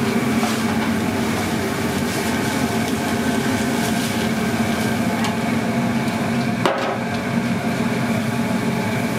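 Steady mechanical hum of kitchen equipment running, with a few faint clicks and one sharper knock about two-thirds of the way through.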